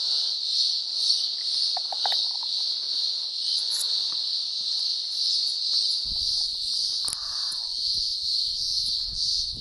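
A chorus of cicadas drones steadily at a high pitch, very noisy. A low rumble joins about six seconds in.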